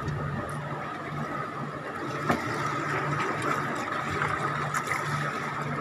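Steady low mechanical hum of a fishing boat's machinery with water noise, and a few faint sharp clicks.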